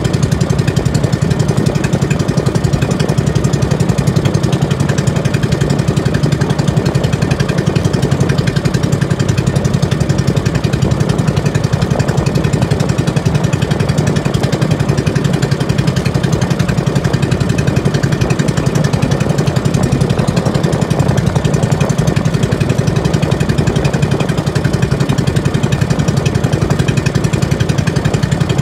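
Outrigger fishing boat's small engine running steadily under way, a fast, even mechanical beat that holds unchanged throughout.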